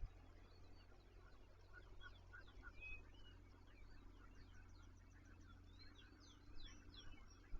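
Faint birdsong: several small birds chirping, with short quick falling notes that come thickest about two seconds in and again near the end.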